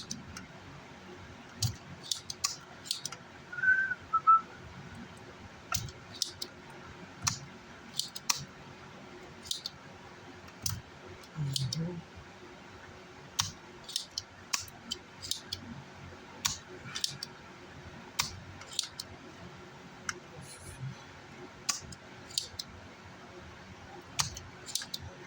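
Irregular light clicks and taps of hand tools working on an amplifier circuit board, as burnt power-supply MOSFETs are desoldered and the pads cleaned. A brief two-note high whistle sounds about four seconds in.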